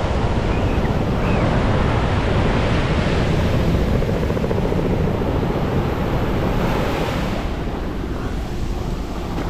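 Ocean surf breaking and washing up the beach, a steady rush that swells and then eases somewhat near the end, with wind buffeting the microphone.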